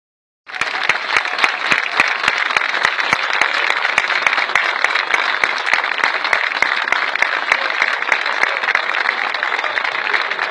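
Large crowd applauding steadily, many hands clapping at once; the applause starts about half a second in.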